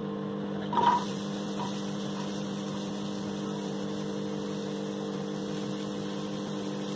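Steady electrical hum of a microwave oven running, with a short rustling clatter about a second in as chopped onions are tipped into a dry pan.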